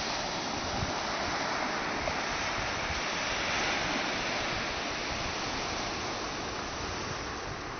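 Surf breaking and washing on a sandy beach in a steady rush, with wind buffeting the microphone in low, uneven rumbles.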